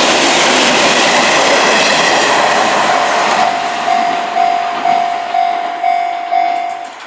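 Electric train of the Izuhakone Railway Sunzu Line passing over a Japanese level crossing, its wheels rumbling and clattering on the rails, then fading. From about three seconds in, the crossing's warning bell rings about twice a second, then stops near the end as the train clears.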